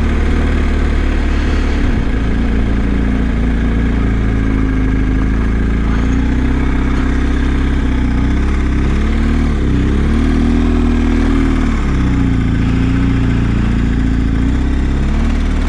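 BMW R1250 GS's boxer-twin engine running under way, its pitch dipping and rising a few times around the middle as the revs change, over a steady hiss.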